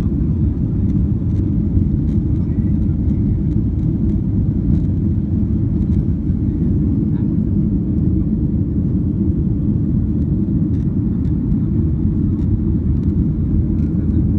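Steady low roar of a jet airliner's engines and rushing air, heard inside the passenger cabin.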